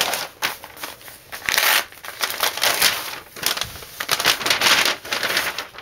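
Crinkling and rustling of USPS Express Mail envelopes as they are handled and pulled open, in a string of uneven bursts.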